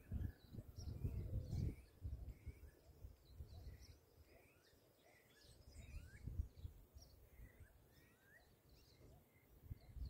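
Wild birds chirping and whistling in many short calls, over low rumbling gusts of wind on the microphone that are loudest in the first two seconds and swell again about six seconds in.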